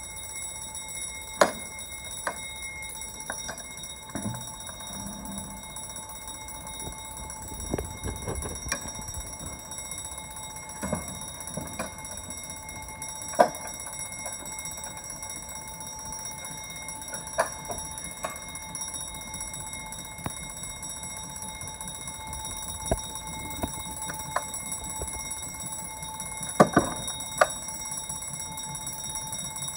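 Wooden level crossing gates being swung across the road by hand, with scattered metallic clanks and knocks from the gate latches and stops, the loudest about 13 and 27 seconds in. Underneath runs a continuous ringing made of several steady high tones.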